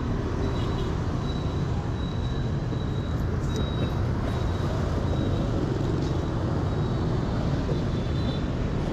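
Steady road traffic with a low engine rumble, as from motorbikes running on a street.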